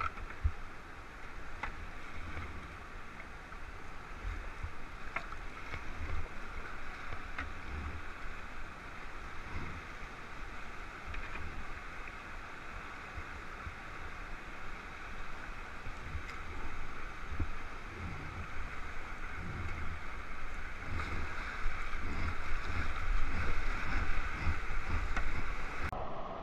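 Whitewater rapids rushing steadily around a kayak, with frequent low thumps of water and wind buffeting the microphone; the rush grows louder over the last few seconds.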